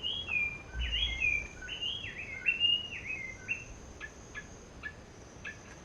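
A bird singing a quick run of clear whistled notes that jump up and down in pitch for about three and a half seconds, followed by a few short, sharp call notes spaced out near the end.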